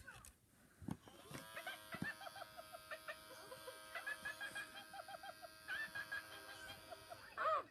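Talking Elmo plush toy playing a short tinny electronic jingle through its built-in speaker: held notes with quick repeated blips over them for about six seconds. There is a soft handling thump about a second in.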